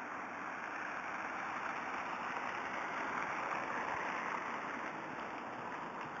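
Street traffic noise: a steady hiss of a passing car that swells about three to four seconds in and then eases.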